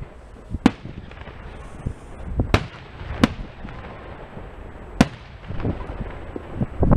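Aerial firework shells bursting: four sharp bangs a second or two apart, with a low rumble underneath.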